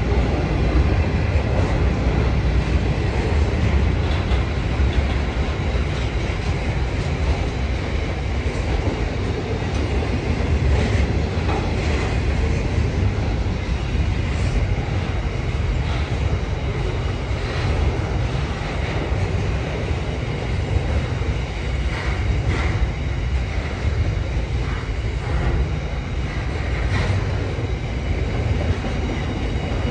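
Container wagons of a freight train rolling past on the rails, a steady low rumble broken by irregular clacks of wheels over rail joints.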